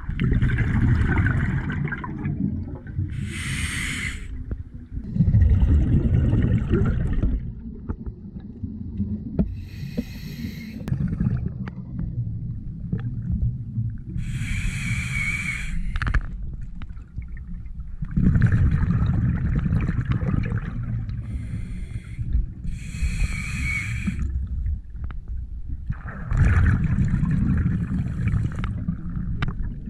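Scuba diver breathing through a regulator underwater: short hissing inhales alternate with longer, low bubbling exhales, about one breath every six or seven seconds.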